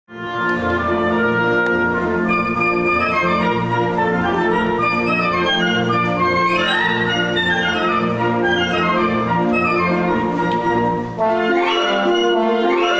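Orchestral music with prominent brass, played in sustained chords and phrases, with a new phrase entering after a brief dip about eleven seconds in.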